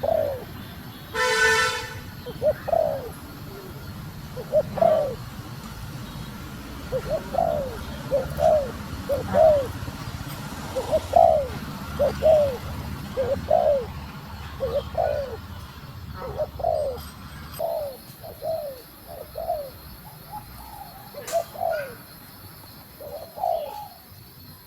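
Female spotted dove cooing: a long run of short, arched notes, often in pairs, about one or two a second. A short buzzy tone sounds just after the start.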